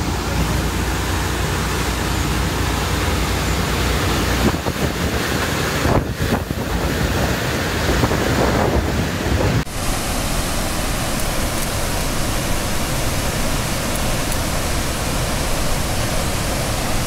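Steady rushing of a waterfall in flood spate. About ten seconds in it cuts abruptly to the rushing of muddy floodwater pouring through a dam's spillway.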